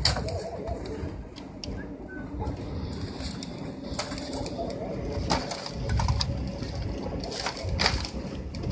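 Scattered sharp clicks and scrapes of fence wire being worked by gloved hands, over a low rumbling noise.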